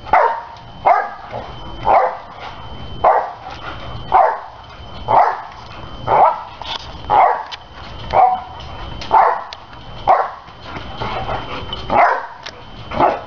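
Boxer dog barking in short, even barks, about one a second.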